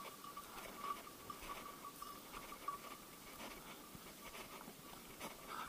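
Faint rustling and footfalls of someone walking through dry bracken and brush, a scatter of small crackles and brushing noises, over a thin steady high tone.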